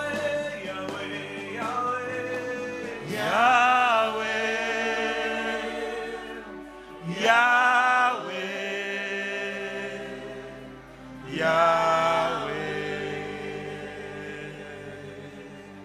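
Gospel worship singing: three slow sung phrases, about three, seven and eleven seconds in, each swelling in and then held and fading over sustained notes.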